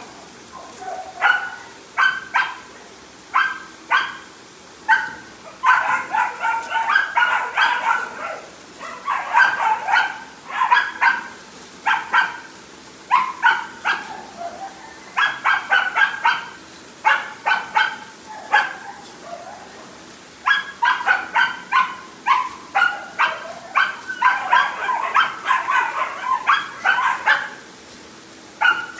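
Four-month-old Belgian Malinois pup barking over and over, single barks alternating with quick runs of rapid barks.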